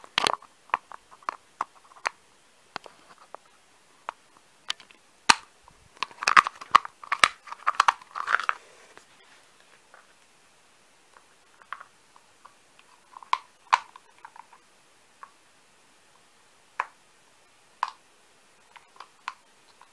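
Small plastic X-Shot dart cans being handled and snapped together, making irregular clicks, taps and brief scrapes. The clicks are busiest around the middle and thin out to a few single clicks near the end.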